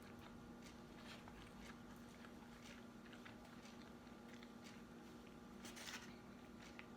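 Faint chewing and small mouth clicks of someone eating, with a somewhat louder crunch or rustle about six seconds in, over a steady low hum.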